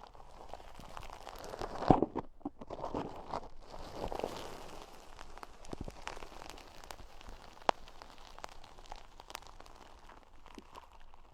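Close-up ASMR ear-cleaning sounds: irregular scratching, rustling and crackling of tools working at the ear. A sharper knock comes about two seconds in and a crisp click near eight seconds.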